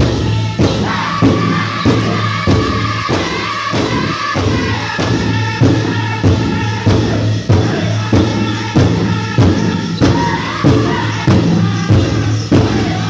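Powwow drum group singing a chicken dance song: voices in unison over a big drum struck in a steady beat, about one and a half strikes a second.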